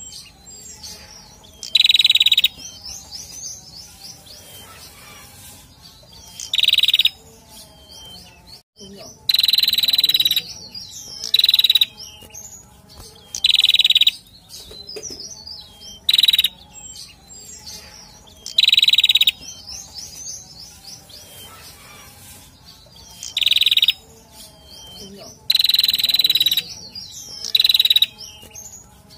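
Male prenjak (prinia) calling in bursts: short, loud, sharp phrases about half a second long, repeated every two to three seconds, with softer high chirps in between.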